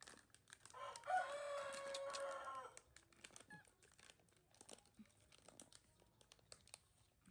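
A rooster crows once, a single drawn-out call of about two seconds starting about a second in. Faint crinkling and clicks of a plastic snack packet being handled follow.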